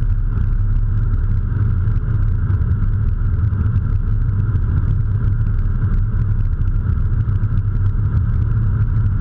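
Steady engine and tyre noise heard inside a Honda Civic's cabin while cruising at highway speed, mostly a low, even rumble with no sudden events.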